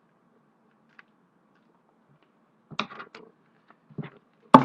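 A trading card pack and its cards being handled: a few short rustles and clicks, the loudest near the end.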